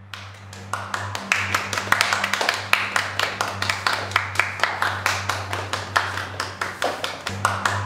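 A small audience clapping, starting as the piano music dies away and building quickly to steady applause. A low steady hum runs underneath.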